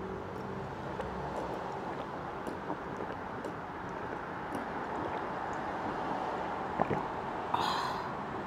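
Drinking green tea from a glass pitcher: faint swallows over a steady background rumble, with a short breathy sound near the end as the drinking stops.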